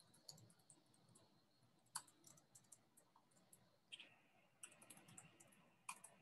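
Faint typing on a computer keyboard: scattered key clicks, some in quick short runs.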